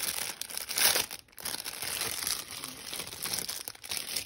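Thin clear plastic pen packaging crinkling as it is pulled open by hand, loudest about a second in.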